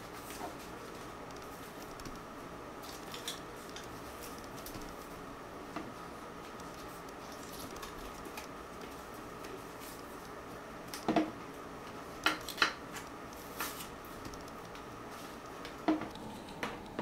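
Hands unwrapping and handling a new canvas-and-leather crossbody bag: faint rustling of its protective paper and film, with sharper clicks and taps in a cluster about eleven to thirteen seconds in and again near the end, over a steady faint hiss.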